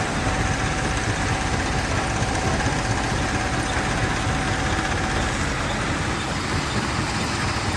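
Quarry primary jaw crusher running steadily: a dense, even mechanical noise with no separate impacts, and a faint steady whine that stops about five seconds in.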